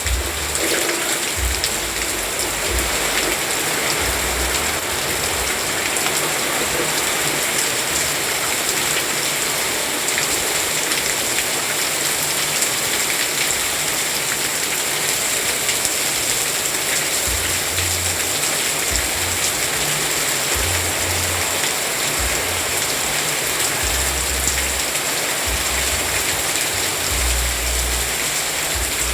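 Steady heavy rain falling, an even, unbroken hiss, with low rumbles coming and going in the second half.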